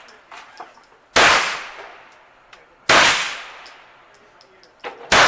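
Three loud gunshots about two seconds apart, each followed by a long echoing tail, with a fainter crack just before the third.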